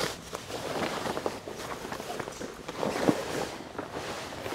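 Rustling and crinkling of Simms chest-wader fabric as the waders are stepped into and pulled up to the waist, with shuffling feet and one sharp knock about three seconds in.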